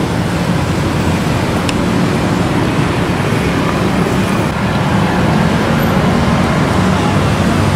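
Steady street traffic noise from motorbikes and cars passing on a busy road.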